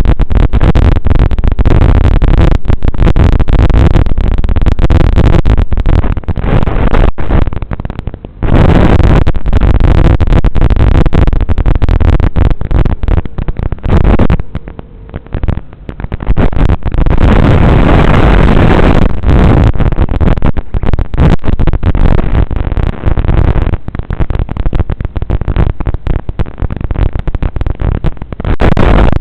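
FPV racing quadcopter's motors and propellers running at full loudness, a harsh, choppy noise with wind rush, easing off briefly about eight seconds in and again around fifteen seconds in.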